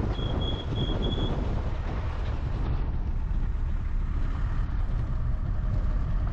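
SUV driving over a rough dirt mountain road: steady engine and road rumble with wind on the microphone. A run of about four short high beeps sounds about a second in.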